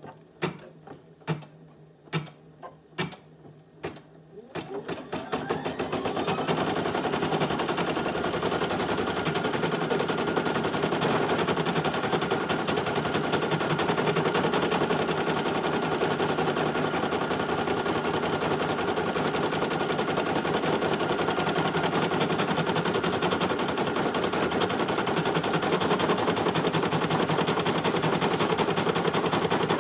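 Brother PE800 single-needle embroidery machine: a few separate clicks, then about five seconds in it starts stitching and speeds up into a fast, steady stitching rattle as it sews out the design.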